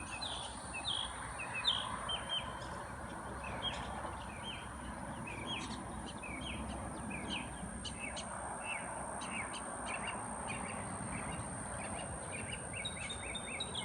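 Songbirds chirping: many short, quick high chirps repeated throughout, over a steady outdoor hiss.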